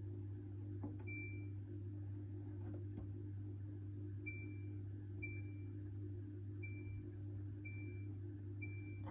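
Hoover H-Wash 600 integrated washing machine's control panel beeping as buttons are pressed to select programs and options. There are six short high beeps, one about a second in and five more about a second apart in the second half, over a steady low hum.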